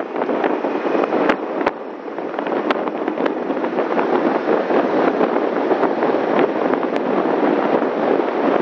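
Wind buffeting a microphone on a moving car: a loud, steady rush with scattered sharp crackles, most of them in the first two seconds.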